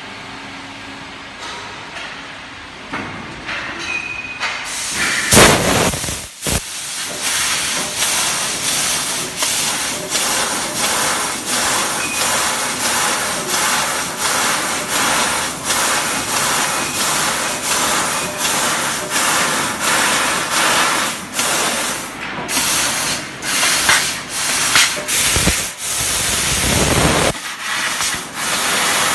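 Fiber laser cutter with a 4 kW Raycus source cutting 3 mm aluminium sheet: a loud hiss of assist gas and cutting, broken by frequent sharp ticks and short dips. It is quieter for the first few seconds, then loud from about five seconds in.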